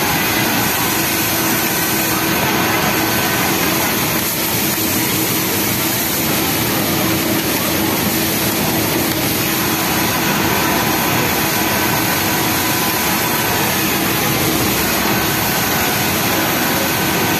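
Steady mechanical din of industrial sewing machines running on a garment factory floor, including a Yamato flatlock machine stitching a T-shirt's bottom hem, with a steady hum through it.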